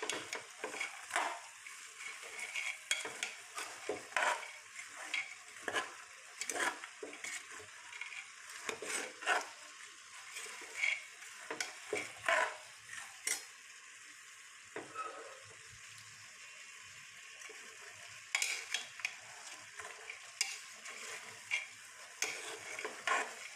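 Chickpeas frying in oil and spice paste in a pan, sizzling, while a utensil stirs and scrapes them in quick irregular strokes. The strokes let up for a few seconds just past the middle, leaving mostly the sizzle.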